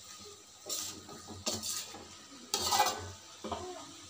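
A wooden spatula stirs and scrapes a vegetable stir-fry around a metal wok in several separate strokes. The loudest stroke comes a little before three seconds in.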